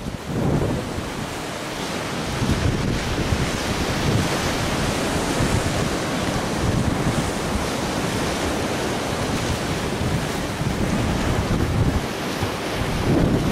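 Choppy sea with waves breaking, mixed with strong wind buffeting the microphone in gusts.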